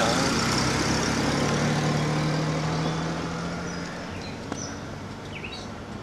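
A car driving off, its engine and tyre noise fading away over about four seconds.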